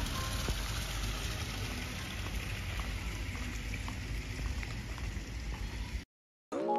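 Steady outdoor ambience on a walkway: an even hiss over a low rumble, with a few faint ticks. It cuts off abruptly about six seconds in, and music starts just before the end.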